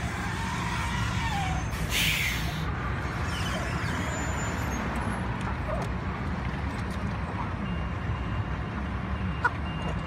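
A live-haul poultry truck's diesel engine idling with a steady low rumble. A short burst of air hiss comes about two seconds in.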